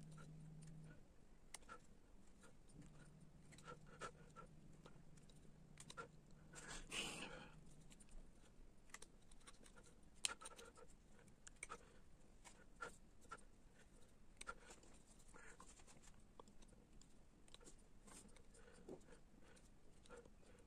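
Faint, irregular scraping and ticking of a small hand carving tool taking fine cuts in linden wood, short strokes scattered throughout. A brief louder rush of noise comes about seven seconds in.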